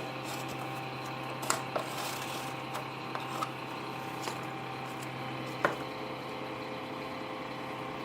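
Scattered small clicks and taps, the loudest about five and a half seconds in, as a folding knife is taken apart by hand, over a steady low hum.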